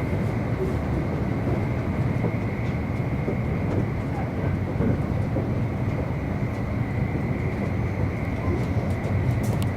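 E259 series Narita Express electric train running at speed, heard from inside the passenger cabin: a steady rumble of wheels on rail with a faint steady high whine.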